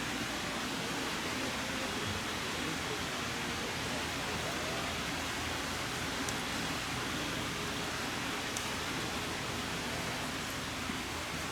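Steady, even hiss of background noise with no distinct events, and a couple of faint high ticks.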